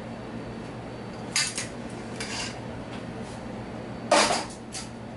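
A serving utensil clinking and scraping against a dish while cauliflower rice is spooned onto it. There are a few light clinks and short scrapes, with the loudest knock about four seconds in.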